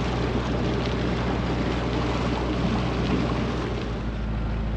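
A sailboat's inboard diesel engine running at a steady low hum while under way, with wind noise on the microphone.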